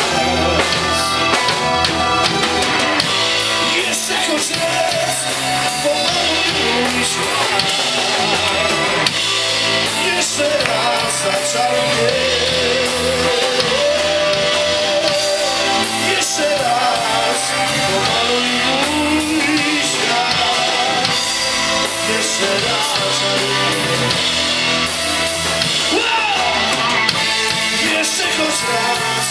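Live rock band playing a song: guitar and drum kit, with a voice singing over them.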